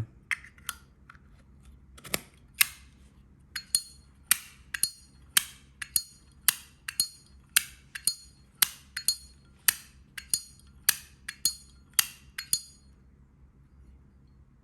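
Zippo lighter's metal lid being flicked open and snapped shut over and over, each stroke a sharp metallic clink, about two a second, stopping near the end.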